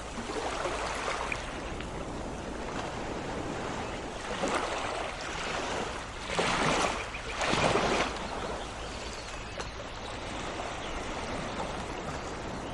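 Sea waves washing onto the shore in a steady rush, with two louder waves breaking about six and a half and seven and a half seconds in.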